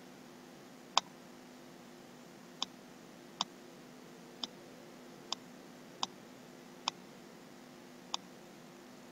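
Computer mouse button clicking eight times: single sharp clicks at uneven gaps, roughly one a second, over a faint steady hiss and hum.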